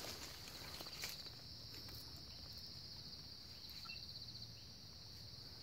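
Forest insects trilling steadily on one high pitch, pulsing in places, with a couple of faint clicks about a second in.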